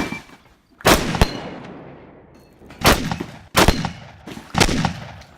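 Shotgun fired five times in quick succession. The first two shots come close together about a second in, and three more follow under a second apart, each with a sharp report and a reverberating tail.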